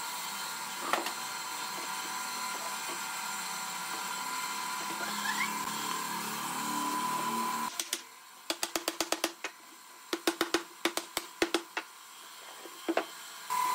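A woodworking power tool runs with a steady whine, then stops about eight seconds in. Clusters of rapid, sharp taps or knocks follow, up to several a second.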